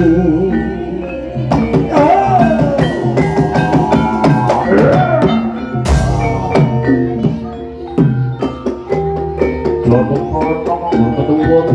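Live Javanese ebeg accompaniment music: mallet-struck metal or bamboo keys and drums playing a rhythmic pattern, with a gliding melody line over them. A loud sharp hit stands out about six seconds in.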